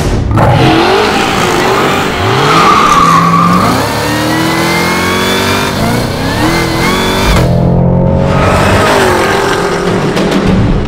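Cadillac CT5-V Blackwing's supercharged 6.2-litre V8 accelerating hard at full throttle, its pitch climbing repeatedly through the gears with short breaks at the shifts.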